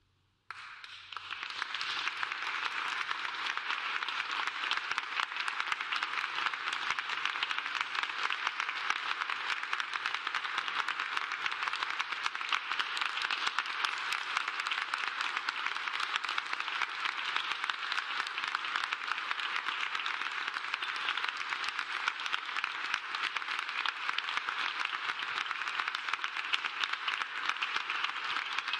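Audience applauding. The clapping breaks out suddenly about half a second in, then holds as a steady, dense patter.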